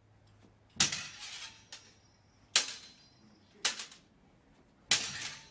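Practice longswords striking together in sparring drill: four sharp blade hits and one lighter one, roughly a second apart, each with a brief ring.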